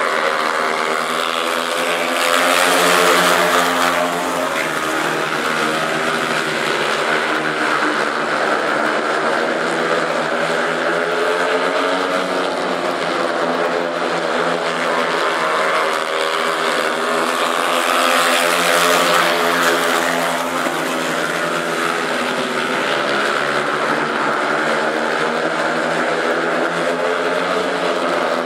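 A pack of speedway motorcycles racing at full throttle, their 500 cc single-cylinder methanol engines giving a dense, high engine note that rises and falls as the riders go through the bends. The sound swells louder twice, a few seconds in and again about two-thirds of the way through, as the bikes pass nearest.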